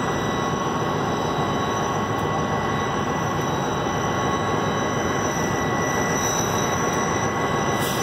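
CSX EMD GP-series diesel locomotives ("geeps") idling together: a steady, even diesel rumble with a thin steady whine above it.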